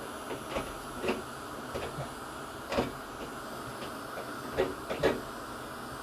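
Small embossing heat gun blowing hot air steadily, melting embossing powder on stamped paper. Several short sharp clicks cut through it, the loudest near the end.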